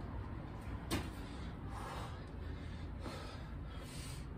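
A man breathing hard from the exertion of burpees, with two loud breaths, one about two seconds in and a longer one near the end. A single sharp knock comes about a second in.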